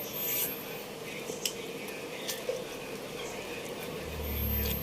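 Eating sounds: chewing and mouth noises with a few light clicks, over a steady low hum, and a low rumble near the end.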